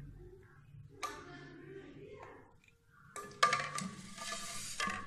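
Pink Kashmiri tea poured through a metal strainer into ceramic mugs. A sharp clink comes about a second in, and a louder clink with a ringing note and a short hiss about three seconds in.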